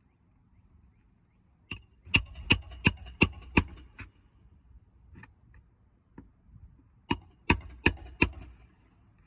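Hammer driving roofing nails into a shingle: a light setting tap followed by five quick ringing blows about three a second, then another tap and four more blows.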